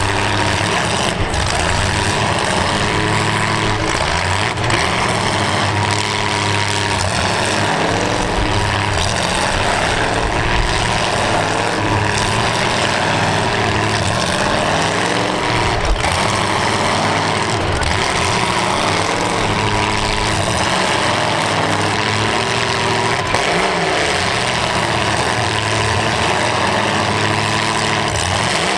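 Demolition derby cars' engines running and revving up and down, with a few sharp knocks.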